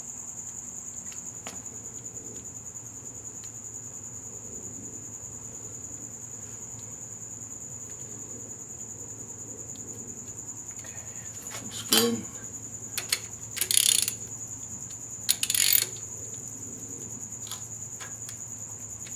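Hand tools and rocker-arm parts clinking and rattling on a Ford 302 V8's cylinder heads: a sharp metallic clink a little past the middle, then two short rattles a couple of seconds apart. A steady high-pitched whine runs underneath.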